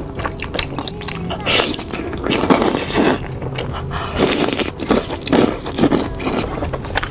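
Close-miked eating sounds: wet chewing with sharp clicks and smacks, and several louder bites and slurps.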